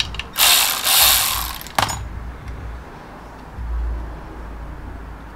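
A ratchet run on a clutch pressure plate bolt: a burst of quick ratcheting for about a second and a half, ending in a sharp click, then only low handling noise.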